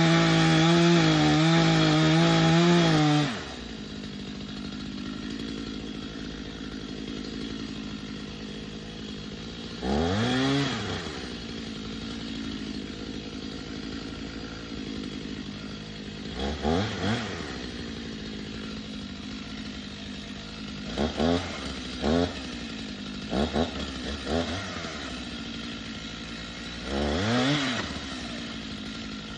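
Two-stroke chainsaw running at full throttle, which drops to idle after about three seconds. It then idles, with several short throttle blips that rise and fall in pitch.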